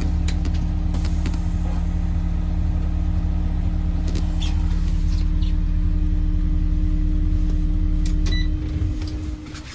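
School bus engine idling steadily, then shut off about eight and a half seconds in and running down to a stop within about a second.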